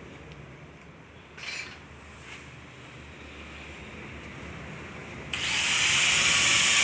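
A power tool starts suddenly about five seconds in and runs with a loud, steady hiss, likely working the sheet metal of an engine hood. Before it there is only a low hum and two brief scrapes.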